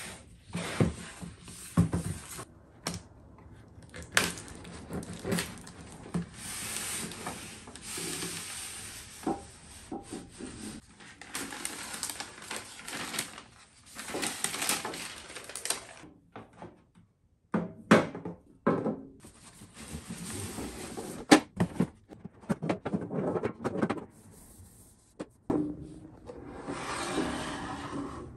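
Cardboard flat-pack boxes for IKEA ELLOVEN monitor stands being cut open and unpacked: cardboard scraping and rustling, paper wrapping being pulled out, and sharp knocks as parts are handled. The loudest knock comes about two-thirds of the way through.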